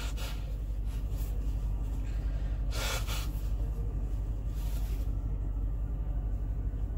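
A person blowing their nose into a tissue: three short blows, the loudest about three seconds in. Under it runs the steady low hum of a car idling, heard from inside the cabin.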